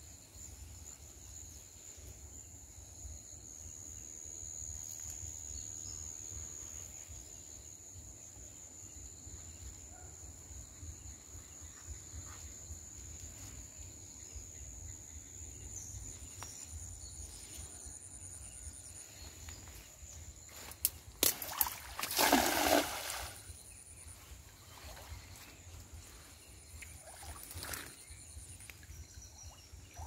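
Insects buzzing steadily at a high pitch, with a brief loud splash and slosh of pond water about two-thirds in and a fainter splash near the end.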